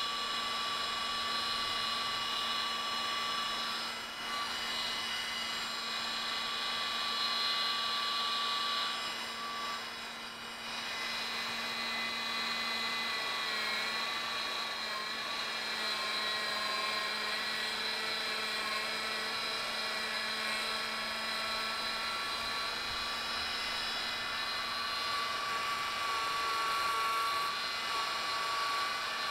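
EMAX 2204 brushless miniquad motor spinning at a steady speed with a steady whine, while a flat file held lightly against its spinning aluminium bell scrapes off metal to balance the out-of-balance bell. The pitch wavers slightly partway through, and the level dips briefly twice.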